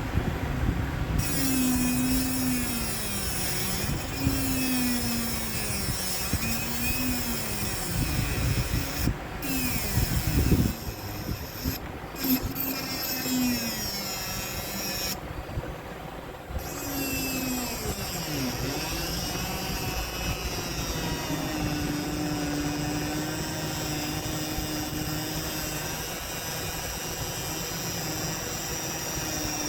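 A small power tool running, its motor pitch repeatedly dipping and rising, then holding steadier for the last several seconds.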